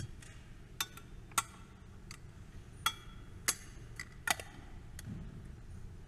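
Small sharp metallic clicks and clinks, about six spread over a few seconds, each ringing briefly, from a small gilded altar vessel being handled and closed.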